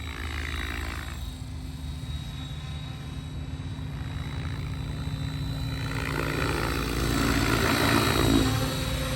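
Synergy 696 electric RC helicopter in flight: a steady motor whine over the whoosh of the spinning rotor blades. It swells louder from about six seconds in, peaking near the end.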